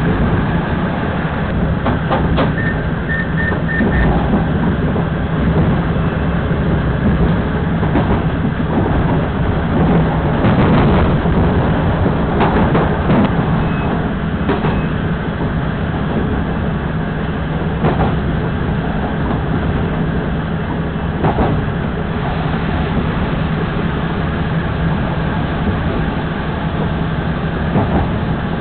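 Taiwan Railway DR2700 diesel railcar running along the track, heard from the front of the car: a steady engine hum and rolling wheel noise, with scattered clacks as the wheels cross rail joints and points. A few short high beeps sound about three seconds in.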